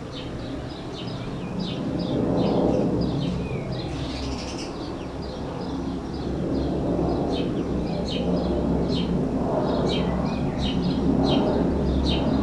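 Small birds chirping in rapid, short high notes, over a low rumbling outdoor noise that swells and fades several times.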